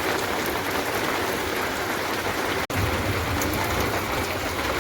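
Rain falling steadily, a dense even hiss and patter. It cuts out for an instant just after halfway, then resumes with a low rumble underneath.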